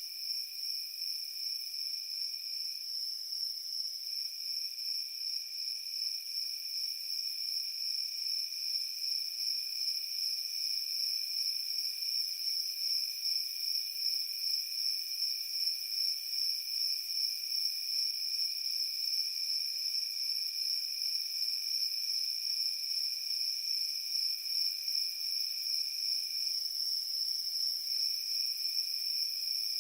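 Night-time insect chorus, crickets or similar, with a steady high-pitched pulsing trill throughout. A second, lower insect trill stops briefly twice, a few seconds in and near the end.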